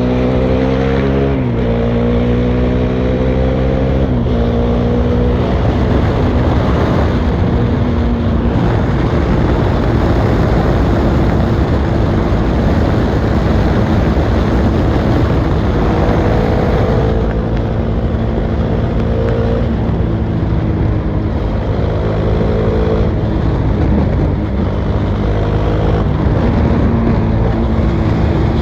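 Bajaj Dominar 400's single-cylinder engine running with no muffler on a highway run: the raw exhaust note climbs in pitch and drops at each upshift in the first several seconds. Mid-way a dense rush of wind noise largely covers the engine, then the exhaust note comes back with a few more pitch changes.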